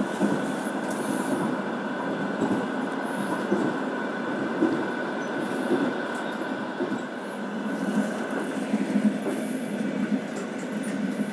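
Passenger train running along the track, heard from inside the carriage: a steady rumble of wheels on rails with a thin, continuous whine above it and occasional light knocks.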